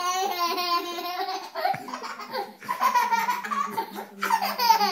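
A baby laughing in several bursts of rapid, pulsing giggles while being kissed and nuzzled.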